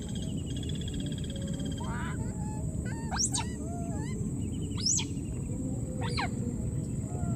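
Baby macaque giving three sharp, shrill squeals that sweep up and down, about a second or two apart. Under them runs a steady high-pitched whine and a low rushing background, with a short trilling call near the start.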